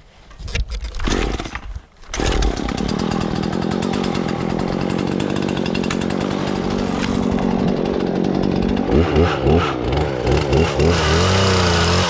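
Husqvarna 120 Mark III two-stroke chainsaw starting up: a short burst of noise, then the engine catches about two seconds in and runs steadily. Near the end it is revved up and down several times.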